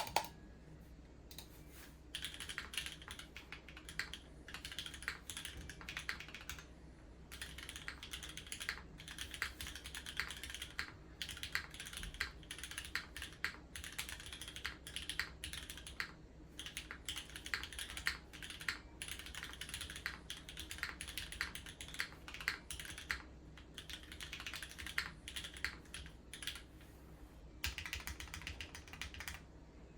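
Typing on a Geonworks F1-8X V2 custom mechanical keyboard with lubed, filmed Cherry MX Black (Nixie) linear switches on a 1.5 mm aluminium leaf-spring plate. Rapid runs of keystrokes are broken by brief pauses.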